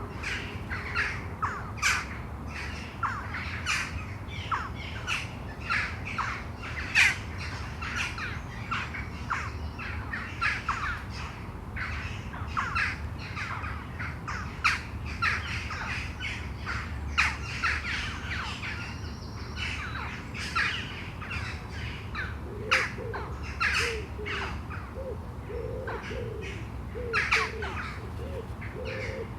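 Many birds calling over one another in a rapid, overlapping series of short harsh calls, with a steady low rumble underneath. Near the end a run of lower-pitched short calls joins in.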